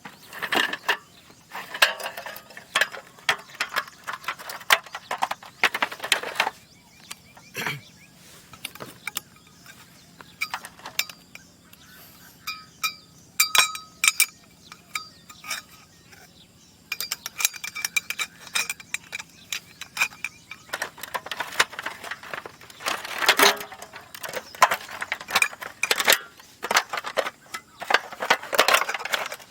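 Irregular clicking, clinking and rattling of small hard objects being handled, busy at first and again near the end, with a sparser stretch in the middle where a few short ringing tones sound.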